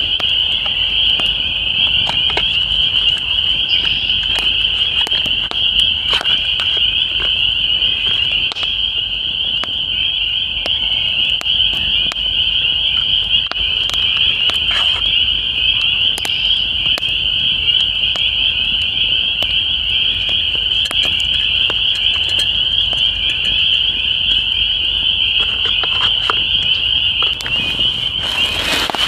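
Loud, unbroken chorus of frogs from the pond, a dense high-pitched calling, with faint crackles of a campfire. A brief rustle near the end.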